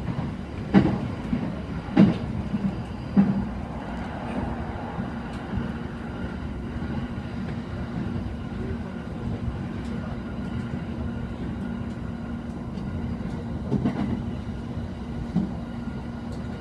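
Running noise of a moving electric commuter train heard from inside the carriage: a steady rumble and hum, with sharp wheel knocks over rail joints, three about a second apart near the start and two more near the end.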